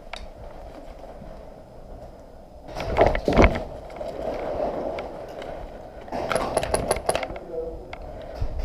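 A loud rustling thump about three seconds in, then a quick run of about eight sharp clicks, like an airsoft rifle firing a short full-auto burst, about six seconds in.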